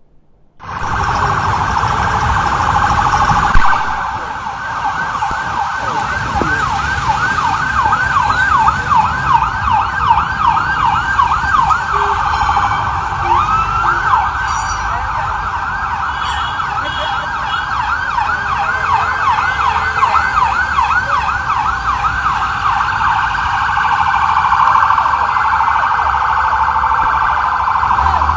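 Several motorcade escort sirens sounding together, their fast rising-and-falling sweeps overlapping, over a low rumble of vehicles. The sound cuts in abruptly about half a second in.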